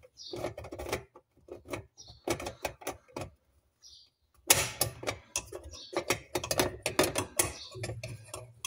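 Rapid, irregular clicks and light knocks of a hand and a tool working the fuel pump locking ring and fitting on top of a Jaguar XK8 fuel tank, coming in clusters that grow busier about halfway through.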